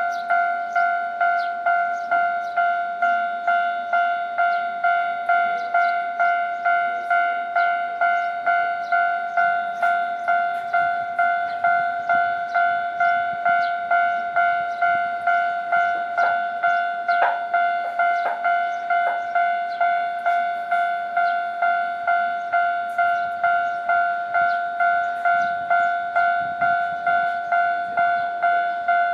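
Japanese railway level crossing warning bell ringing steadily: the crossing is active. It strikes about three times every two seconds, and each ding dies away, with a few sharper knocks near the middle.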